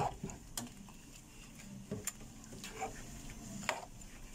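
Metal spoon stirring shrimp in a stainless steel pot, giving a few light, scattered clicks as it knocks against the pot.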